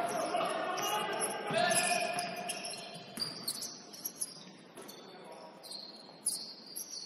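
Basketball game sounds in a gym: players' voices calling out for the first couple of seconds, then high sneaker squeaks on the court and a few sharp knocks of the ball.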